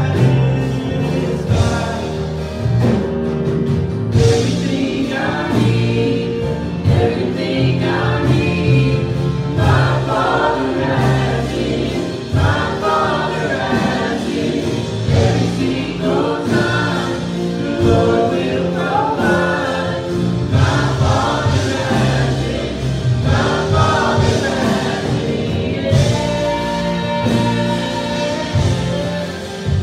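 Live church praise band performing a gospel worship song: women's and a man's voices singing together over acoustic guitar and electric bass.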